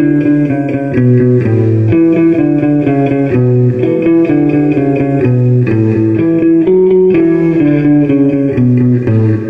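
Electric guitar played clean: a simple melody of separate held notes in D major, each about half a second long, with lower notes sounding under it.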